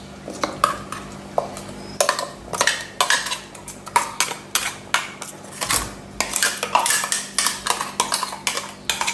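Metal spoon repeatedly scraping and clinking against a metal bowl while thick coconut paste is scooped out of it. The strokes are sparse at first, then come quickly, several a second.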